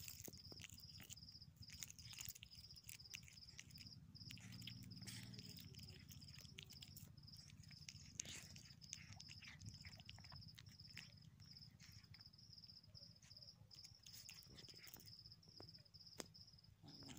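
Faint cricket chirping steadily, about three high chirps a second, with scattered soft clicks and rustles over a low hum.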